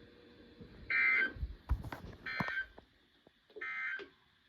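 NOAA Weather Radio receiver sounding the SAME end-of-message data signal: three short buzzy bursts of digital tone about a second and a half apart, marking the end of the weekly test broadcast. A couple of low knocks fall between the first and second bursts.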